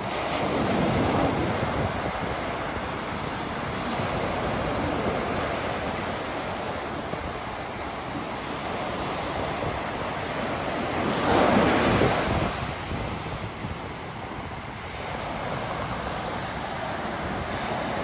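Ocean surf breaking and washing up a sandy beach: a continuous rush that swells as each wave breaks. The loudest surge comes about two-thirds of the way through.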